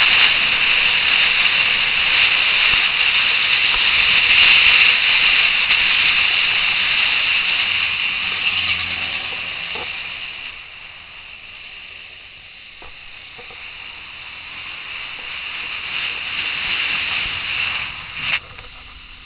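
Wind and road rush on the microphone of a camera riding on a moving motorcycle: a steady, loud hiss. It eases off about halfway through as the bike slows, builds again, then a click and a sudden drop in level come near the end.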